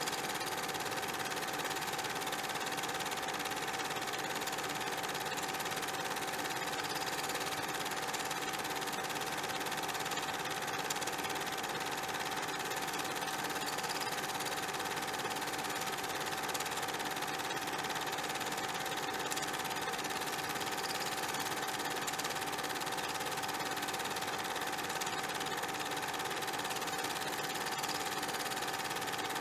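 Steady, unchanging mechanical running noise: a constant hum tone over an even hiss, with no music.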